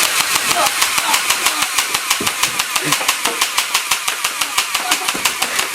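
Airsoft MP5 firing full-auto in one sustained burst, a rapid even string of shots at about eight a second.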